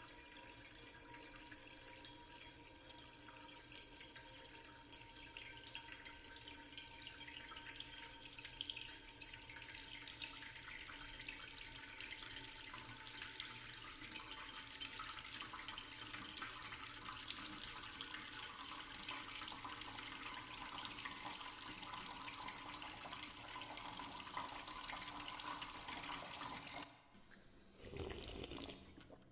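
Running, splashing water full of small drips, processed as 8D audio. The sound drops away briefly twice near the end.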